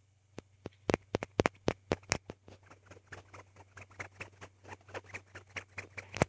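Hand spinner being tapped and handled: a quick cluster of sharp, loud clicks about a second in, then a run of lighter, irregular ticks, and one last loud click at the end.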